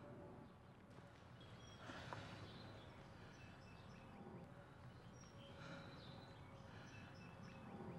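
Near silence: faint outdoor ambience, a low steady rumble with a few short bird chirps.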